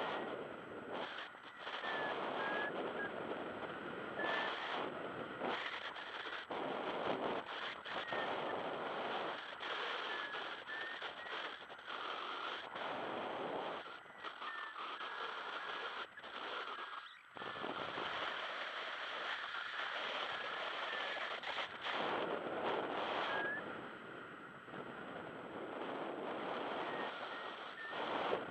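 Wind rushing over a paraglider's onboard camera microphone in flight, a steady roar that gusts up and drops away every second or two.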